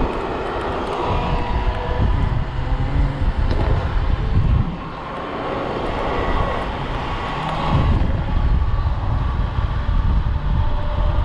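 Wind buffeting the microphone and a low road rumble while riding a Dualtron Thunder electric scooter. The rush eases for a few seconds about halfway through, then builds again.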